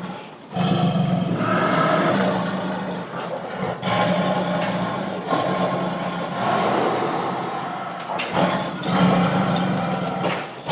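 Angry tiger roaring and growling: about four long, rough roars one after another, each separated by a brief pause.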